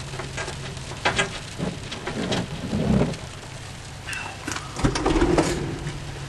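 Thunderstorm rain spattering on a vehicle as the wind picks up, with heavier low rumbling gusts about three and five seconds in.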